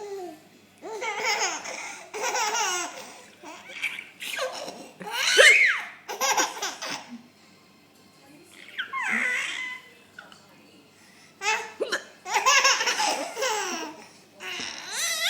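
Baby girl laughing in repeated bouts of giggles and belly laughs, with a couple of short pauses between them; the loudest laugh, high and rising, comes about halfway through. She is laughing at her mother's hiccups.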